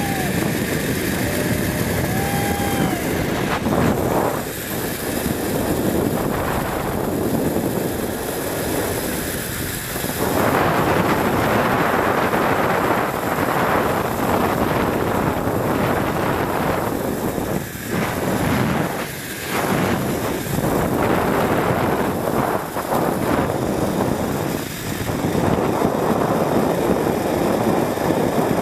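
Zip-line trolley running fast along a long steel cable, its pulleys whirring, with wind rushing over the microphone. The noise swells and dips several times but never stops.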